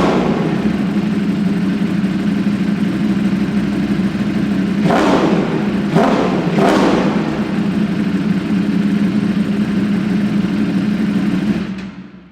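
Ducati Streetfighter V4S's 1103 cc V4 engine idling, blipped sharply once at the start and then in a quick cluster about five to seven seconds in, each rev dropping straight back to idle. The sound fades out near the end.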